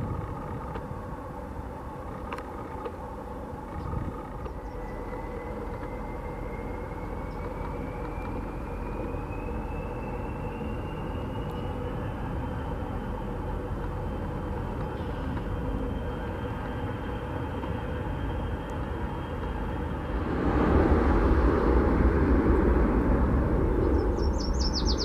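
Airbus A321-211's CFM56 jet engines running at taxi power: a steady rumble with a whine that rises in pitch and then holds steady. The sound grows louder about twenty seconds in. A bird chirps briefly near the end.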